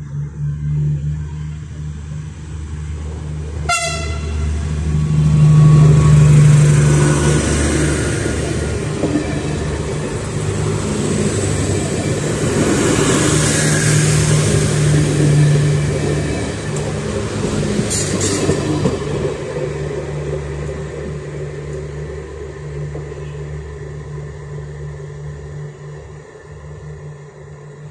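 TCDD diesel multiple-unit train passing close by: a steady low engine drone under rushing wheel-on-rail noise that swells twice and then fades away. Two brief sharp sounds cut through, about four seconds in and again near eighteen seconds.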